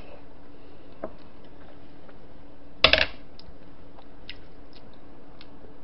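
Quiet eating sounds: faint scattered clicks of chewing and utensils over a steady low hum, with one short, louder clink of utensils against a dish about three seconds in.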